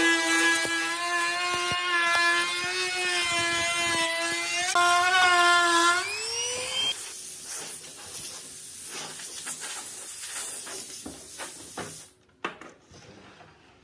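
Handheld trim router running with a steady high whine as its bearing-guided bit cuts along a board edge. About six seconds in its pitch rises briefly and the whine stops, followed by several seconds of rough hissing with scattered clicks, then near quiet near the end.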